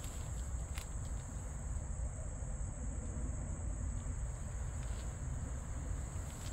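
Steady, high-pitched drone of insects that never lets up, over a low rumble and a few faint clicks.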